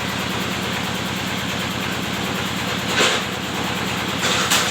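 Bamboo splitting machine with its engine running steadily, and two loud short rasping bursts, about three seconds in and again near the end, as bamboo goes through the splitter.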